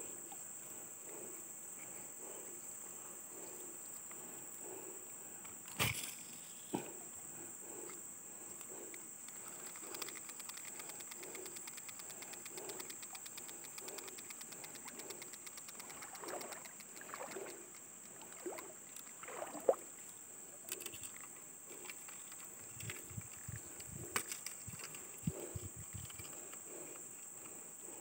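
Insects shrilling in a steady high drone. Under it a faint low pulse repeats about twice a second, and a few sharp clicks or knocks come about six seconds in and near twenty seconds.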